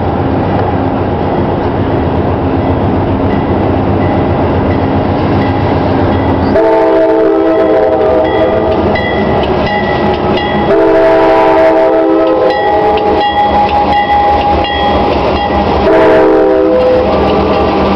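Diesel freight locomotive's multi-chime air horn sounding the grade-crossing signal: two long blasts, a short one, then a final long blast beginning near the end. Under it is the low rumble of the approaching train, with the locomotive bell ringing.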